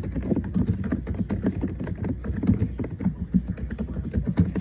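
Computer keyboard being typed on fast: a dense, irregular run of key clicks.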